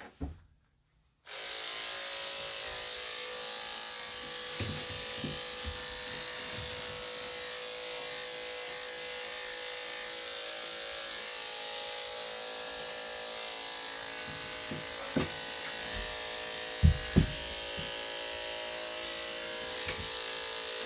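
Electric dog grooming clippers switched on about a second in and running steadily. A few short knocks near the end.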